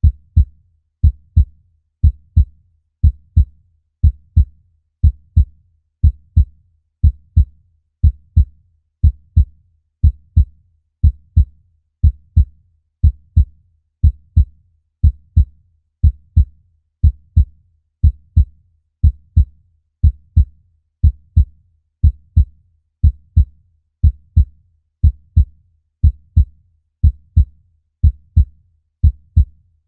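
Human heartbeat at rest, a steady lub-dub: pairs of low thumps repeating about once a second in an even rhythm.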